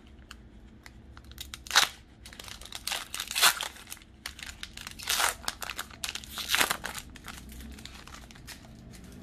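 Foil wrapper of a Pokémon trading-card booster pack being torn open and crinkled as the cards are pulled out: a series of sharp crinkling rustles, the loudest about two seconds and three and a half seconds in.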